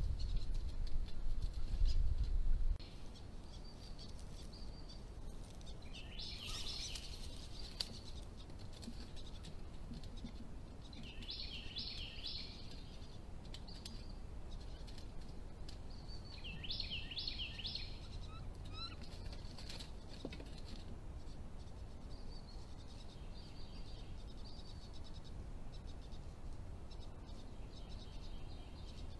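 Woodland ambience with a songbird singing: three short phrases of rapidly repeated high notes, several seconds apart, and fainter ones later. A low rumble fills the first few seconds and stops abruptly.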